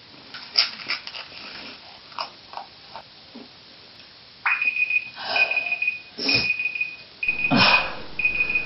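Boy chewing dry Petit biscuits, with small crunches and mouth clicks. About halfway through, a high steady tone starts, broken into pieces about a second long, and several loud, short mouth noises sound over it.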